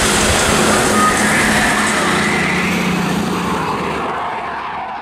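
Jet roar of a Eurofighter Typhoon's twin Eurojet EJ200 turbofans as it flies past, a loud steady rushing noise with a slowly sliding pitch, dying away toward the end.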